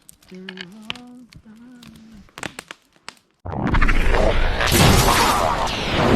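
A short low hummed, voice-like tone, then about three and a half seconds in a sudden loud rushing, booming noise that cuts in abruptly and runs on to the end, typical of an edited-in transition effect with music.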